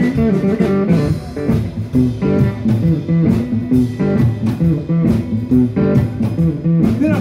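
Live blues: electric guitar playing a riff over a steady drum beat.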